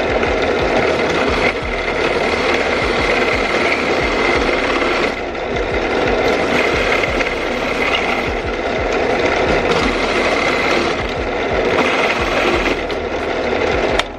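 Handheld power tool running continuously as it cuts a hole through the speaker's plastic housing for a connector jack, with small shifts in load as it bites, then stopping abruptly near the end.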